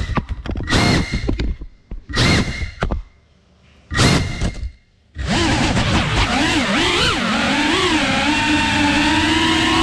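FPV quadcopter's brushless motors whining as the throttle is punched and chopped through flips and dives. The sound cuts out and surges back several times, then from about halfway settles into a steady whine whose pitch wavers up and down with the throttle.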